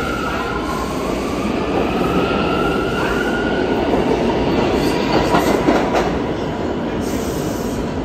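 New York City subway A train of R179 cars pulling out of the station, its traction motors giving a rising whine as it picks up speed over the rumble and clatter of steel wheels on the rails.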